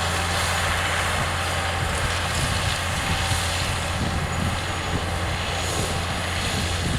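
John Deere 6630 tractor's six-cylinder diesel engine running steadily, pulling a four-furrow mouldboard plough.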